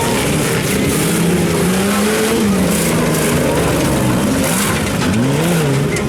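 Off-road 4x4 engines revving hard during a competition run, the pitch climbing and dropping with throttle and gear changes, over a steady rush of noise.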